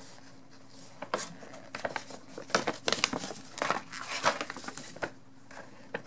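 Folded paper instruction sheet being handled and turned, with a string of crisp, uneven rustles and crinkles from about a second in until near the end.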